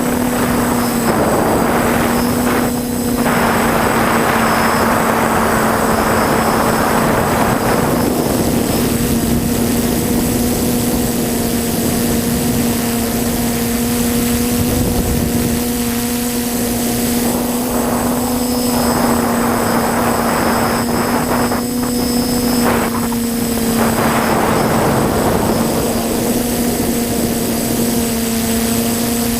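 TBS Discovery quadcopter's electric motors and propellers running in flight: a steady, nearly constant-pitched hum. A rushing noise swells and fades a few times over it.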